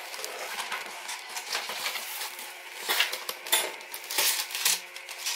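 A large cardboard parcel box being opened by hand: cardboard flaps and packing rustling and scraping. A cluster of sharper crinkles and crackles comes about three to four seconds in.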